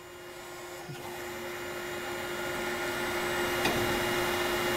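Kinze dual-auger grain cart's auger running empty, a steady mechanical whir that starts about a second in and grows louder as it spins up, over a steady hum, with a single click near the end.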